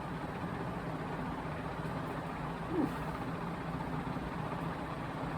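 Union Industrial ceiling fan running steadily at top speed on a five-speed control: a constant rush of air over a low motor hum.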